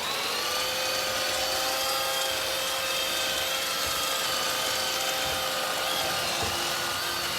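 Roomba 618 robot vacuum running: a steady motor whine with several high tones over a hiss, cutting in suddenly and holding an even level.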